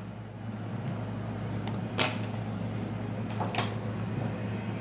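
A few small sharp clicks and taps of a pentalobe screwdriver and tiny screws on an iPhone 5s: one about two seconds in, and two close together a little later, over a steady low hum.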